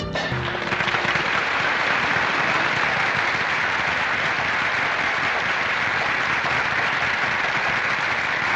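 Audience applauding steadily, starting as the band's last chord breaks off.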